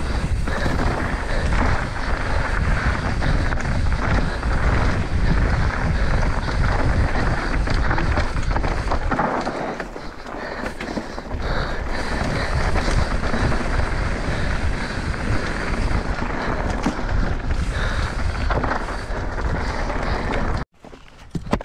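Mountain bike descending a leaf-covered dirt singletrack at speed: wind rushing over the microphone, with tyres rolling and the bike rattling over the trail. It cuts off abruptly near the end.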